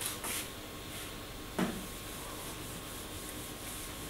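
Whiteboard duster wiping across a whiteboard, erasing marker writing, with one short knock about one and a half seconds in.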